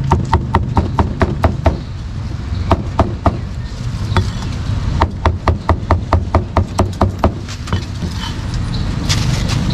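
Meat cleaver chopping cooked meat on a wooden chopping block: quick, even strokes about four a second, each with a short ring, in runs broken by brief pauses about two seconds in and again near the end.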